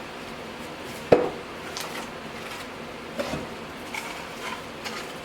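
A sharp knock about a second in, then several lighter knocks and clatters, like things being handled and set down.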